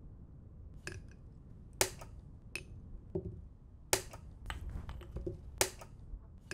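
Plastic chess pieces set down on a roll-up board and DGT chess clock buttons pressed during a fast blitz game: about ten sharp clicks and knocks at uneven intervals.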